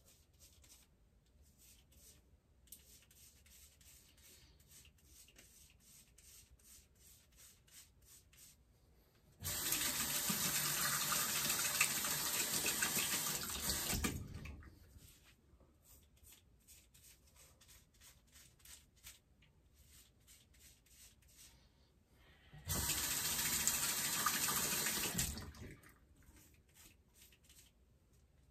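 Bathroom sink tap running twice, for about four seconds a third of the way in and about three seconds near the end, as the razor is rinsed. Between the rinses, faint quick scraping strokes of a hand razor through a thick month-old beard.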